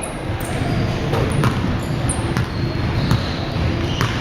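Basketball bouncing on a hardwood gym floor during play, a handful of irregular thuds over the steady noise of the gym.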